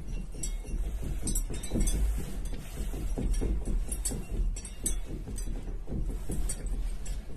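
Crystal drops of a ceiling chandelier clinking and rattling over a steady low rumble, from the room shaking in an earthquake. The clinks and knocks come fast and irregularly.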